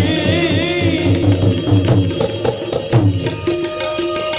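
Devotional folk song with tabla: a singer's wavering held note trails off about a second in, then the accompaniment carries on with a steady tabla rhythm, a rattling hand percussion and sustained instrument notes.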